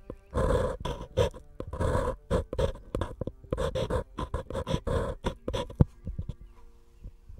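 Pencil scratching on a paper cup in quick, uneven strokes, about three a second, with one sharp tap about six seconds in before the strokes thin out and fade.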